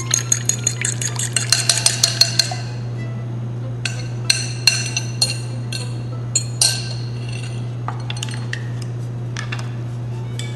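A metal utensil clinking quickly against a small glass bowl as the olive oil and lemon dressing is stirred. After that come scattered single clinks and scrapes on the glass as the dressing is scraped out onto the salad, over a steady low hum.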